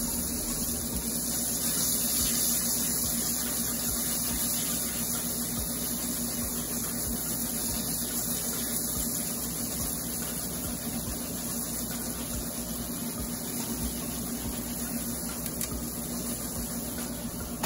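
Chicken pieces frying in hot coconut oil in a pan, a steady even sizzle.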